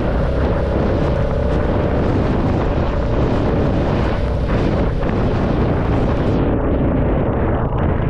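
Royal Enfield Classic 350's single-cylinder engine running steadily at road speed, under heavy wind buffeting on the microphone. A high hiss of rain and wet road rides over it and thins out about six seconds in.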